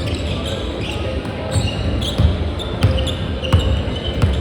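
Basketball bouncing on an indoor court, a few thuds about a second apart, mixed with short high squeaks and players' voices.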